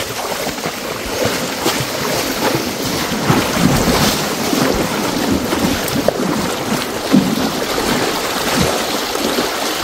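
Continuous splashing and rushing of water, mixed with wind buffeting the microphone, typical of animals wading through shallow floodwater.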